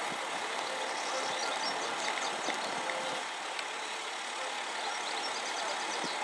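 Steady outdoor background noise with faint, high bird chirps about a second in and again near the end.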